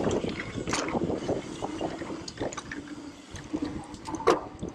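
Mountain bike descending a dirt trail: tyres rolling over dirt and the bike rattling, with scattered sharp knocks, the loudest about four seconds in.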